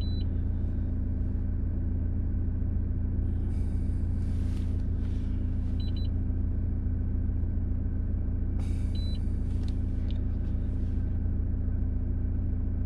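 Car engine idling steadily, a low even hum, with a couple of short bursts of hiss and a few faint short high beeps.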